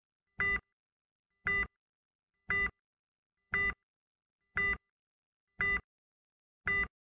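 Heart monitor (EKG) beeping: short, even beeps at about one a second, seven of them, with nothing else heard between.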